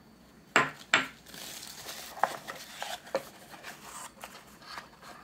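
Ceramic paint pans clacking as they are set down on a wooden table and knock against each other: two sharp clacks about half a second and a second in, then lighter knocks and soft handling of the paper-wrapped box.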